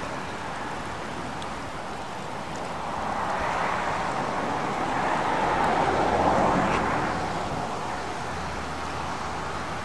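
A car passing by on the road, its noise swelling over a few seconds and fading away, over a steady outdoor background.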